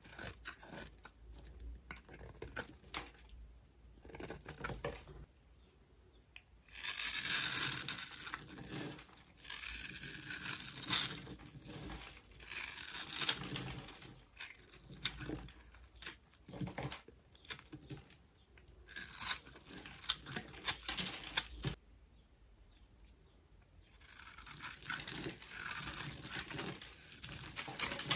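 Knife carving cubes into a bar of dry soap: crisp crunching and crackling as the blade cuts through the brittle soap, in bursts of a second or two with short pauses between cuts.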